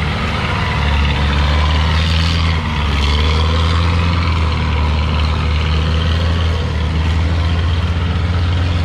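Diesel engines of homemade tracked dump carts (xe cải tiến) running steadily as the carts crawl along, a loud, even low rumble.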